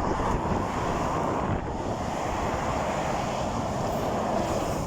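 Steady road-traffic noise from a busy dual carriageway, tyres on tarmac, with wind buffeting the microphone.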